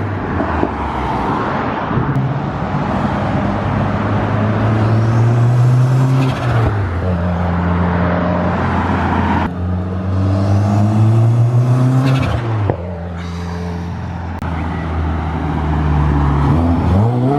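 Turbocharged Subaru WRX boxer engine accelerating hard in several pulls, its note climbing and then cut off sharply each time the throttle is lifted. At each lift the HKS SQV4 blow-off valve, plumbed to recirculate, vents and the turbo flutters.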